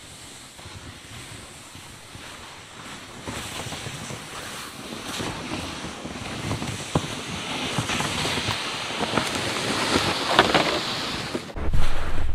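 A loaded sled dragged over packed snow and boots crunching in the snow, growing steadily louder as they come closer. Near the end, close crunching footsteps in snow over a low rumble of wind on the microphone.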